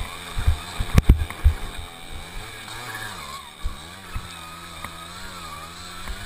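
Tomos APN 6 moped's small two-stroke engine running, its revs rising and falling. In the first two seconds it is mixed with heavy knocks and rattles from riding over a rough trail, including one sharp crack about a second in.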